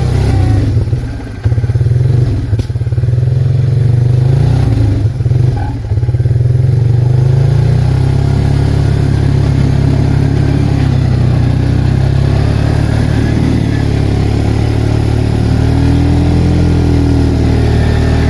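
Arctic Cat 366 ATV's single-cylinder four-stroke engine running under way. The engine note dips briefly about one and a half and five and a half seconds in, then holds steady.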